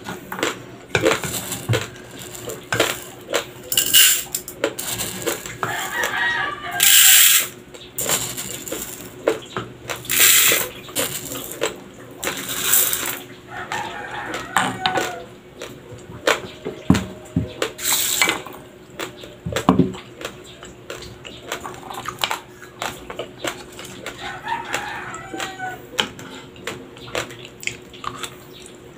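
Raw, uncooked white rice crunched between the teeth: a dense run of sharp cracking clicks. Now and then a longer rattle of dry grains as the wooden spoon scoops rice from the glass bowl.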